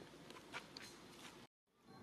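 Near silence: faint background hiss with a few soft clicks in the first second, broken by a brief dead gap about one and a half seconds in.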